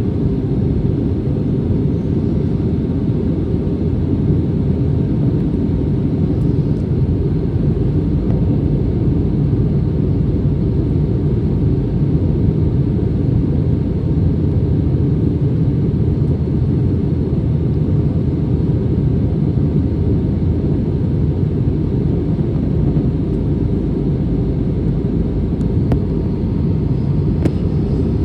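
Airbus A320neo airliner's engines and airflow making a steady, even low rumble, with a faint steady hum over it.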